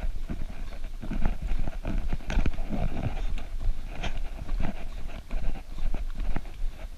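Running footsteps thudding on a dirt forest trail in a steady rhythm, heard from a camera carried by the runner.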